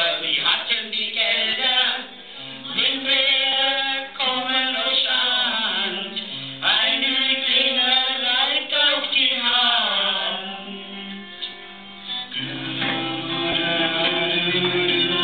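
A song: sung vocals over instrumental backing.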